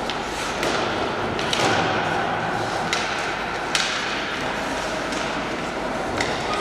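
Ice hockey play on the rink: about five sharp clacks of sticks and puck spread over a few seconds, the loudest about two-thirds of the way through, over a steady rink background noise.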